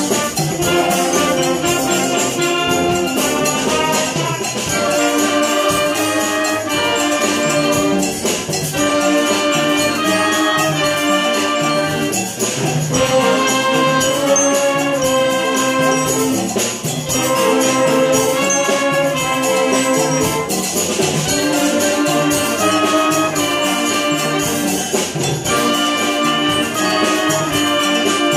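Concert band playing a piece, with clarinets, flutes and brass holding chords that change in phrases every few seconds, and percussion keeping time underneath.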